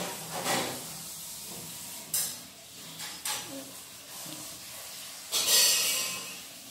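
Fingers tearing dosa and scraping against a steel plate: a few short rustling scrapes, the loudest and longest about five and a half seconds in.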